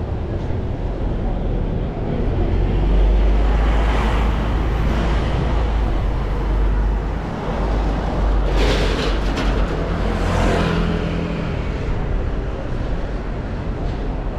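Road traffic passing close by: the engines and tyres of vans and cars, with a steady low rumble. It is loudest when a flatbed recovery truck passes alongside about eight to eleven seconds in.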